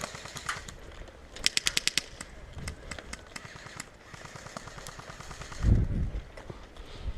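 Airsoft guns firing, scattered single shots and a fast automatic burst of about nine shots around a second and a half in. A low thud on the microphone near six seconds in is the loudest sound.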